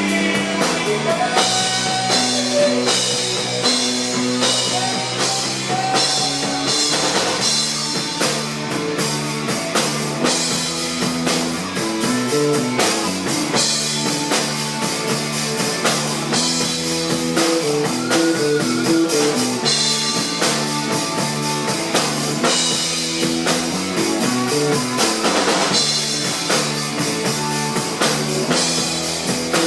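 Rock music with drums and electric guitar playing steadily throughout.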